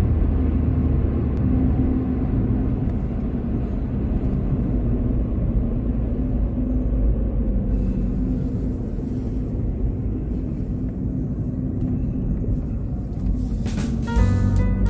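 Steady low rumble of a car driving on the road, heard from inside the cabin, with a constant low hum. Music begins near the end.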